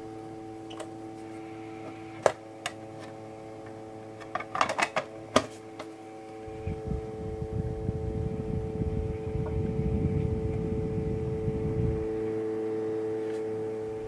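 Small battery-powered evaporative air cooler's fan running with a steady whir made of several even tones. There are a few sharp clicks around two and five seconds in. From about six seconds in, a low rumble joins as the air stream blows against the microphone.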